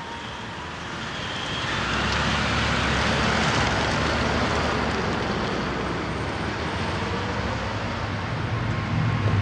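Ford police sedan pulling out and driving away, its engine and tyre noise swelling over the first couple of seconds and then running on steadily.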